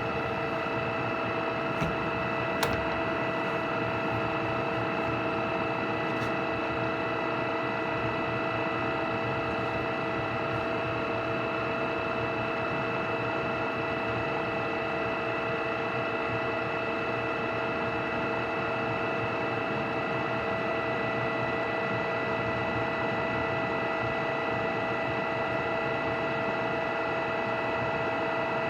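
Oya RE2-1300A radial drilling machine running steadily, its spindle gearing giving an even whine with several fixed tones. Two light clicks come about two and three seconds in.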